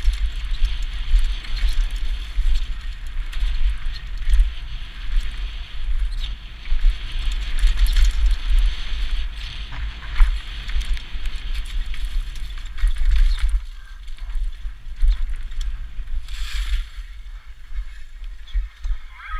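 Mountain bike descending a dirt forest trail: tyres rolling and skidding over the dirt, with the bike clicking and rattling over bumps, under heavy wind rumble on the helmet-camera microphone. The rumble eases off in the last few seconds.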